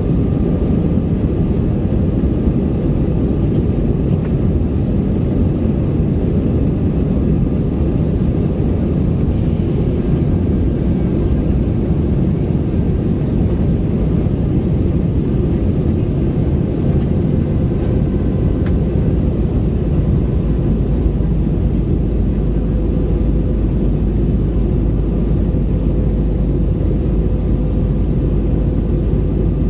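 Steady engine and airflow noise inside a jet airliner's cabin during the climb after takeoff, with faint steady hum tones over it.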